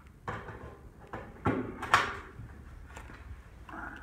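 A series of sharp knocks and clicks from handling a 6.5 Grendel rifle and its suppressor at the bench, the loudest about two seconds in.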